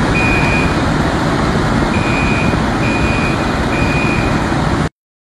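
A fire engine's motor running with a heavy low rumble, over which a high electronic beep sounds in repeated short runs. All of it cuts off suddenly near the end.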